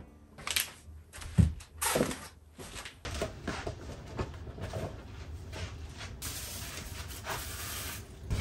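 Household handling noises: a few knocks and a low thump in the first couple of seconds, then rustling and light clatter of kitchen things, with a steady hiss for a couple of seconds near the end.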